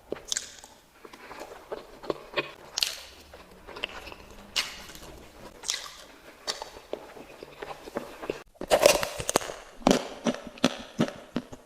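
Close-miked eating of sweets: a run of irregular crisp bites and crunchy chewing. A brief break comes about two-thirds of the way in, followed by louder, quicker crunching.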